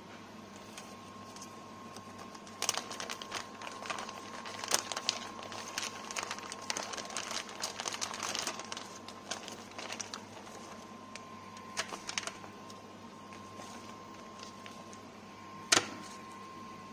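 Plastic meat packaging and a thin aluminium foil tray rustling, crinkling and clicking as marinated meat is handled, busiest in the first half, with one sharp click near the end. A faint steady high hum runs underneath.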